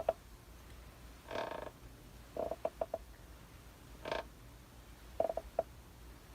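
Old rocking chair creaking as it rocks back and forth. A short squeaky creak comes about every two and a half seconds, and each is followed about a second later by a quick run of three or four shorter creaks.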